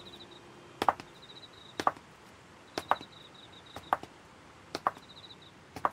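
Footsteps of two people walking side by side, a sharp double tap about once a second. Faint night insects chirp in short high trills between the steps.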